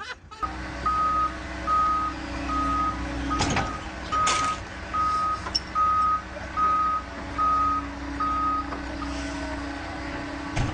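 A heavy machine's reversing alarm beeps steadily at one pitch, a little under twice a second, then stops near the end. Under it a diesel engine runs, and there are two sharp metallic knocks about halfway through.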